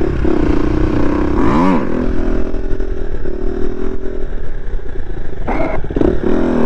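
KTM supermoto's engine running steadily as the rider wheelies, with a quick rev up and back down about a second and a half in and more revving near the end.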